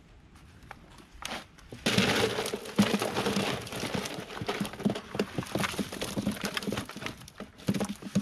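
A bucketful of freshly caught mullet tipped into a plastic tote. About two seconds in, a dense run of slaps, knocks and rattling starts and goes on as the fish slide out and land on one another and the plastic.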